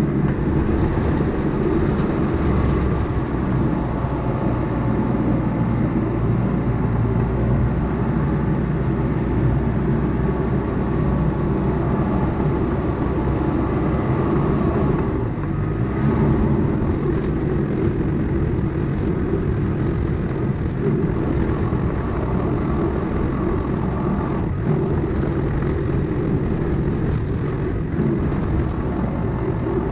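Diesel engine of a heavy earthmoving machine running steadily under load, a low, even drone with faint clanks over it.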